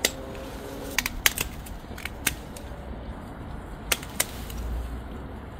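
Pruning shears snipping through frost-damaged Salvia Amistad stems: about nine short, sharp snips at uneven intervals, several in quick succession around a second in.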